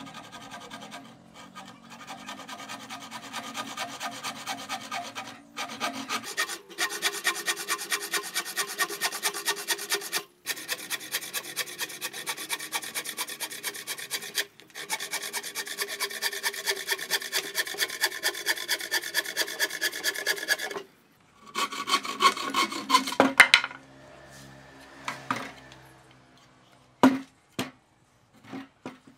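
Rasp scraping back and forth over wood in a steady rhythm of about three strokes a second, with a few short pauses. A few separate knocks come near the end.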